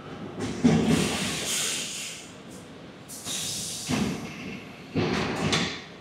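Timber truck's air brake system hissing in three bursts as compressed air is let out, the first and longest lasting about two seconds.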